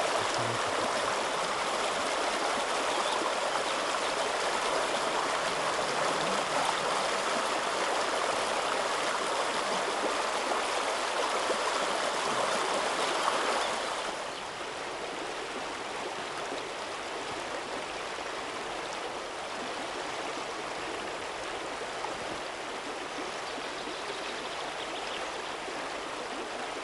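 River water running over a shallow, rippling stretch: a steady rushing. It drops a little in level about halfway through.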